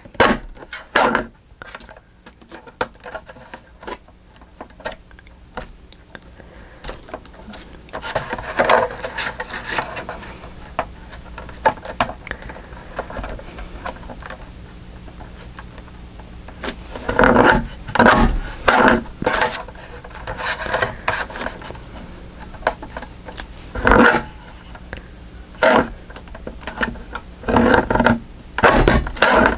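A noisy craft tool working on paper: quiet scattered clicks at first, then a steadier rasping bed from about eight seconds in, with repeated loud scraping strokes in the second half.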